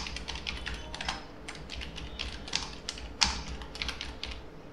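Typing on a computer keyboard: a quick, uneven run of key clicks, with a few louder strokes.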